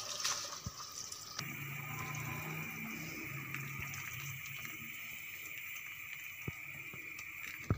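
Rice poured into a pot of boiling water, a rushing patter for about the first second and a half. Then the water bubbles steadily at the boil as the rice is stirred in, and the sound cuts off suddenly near the end.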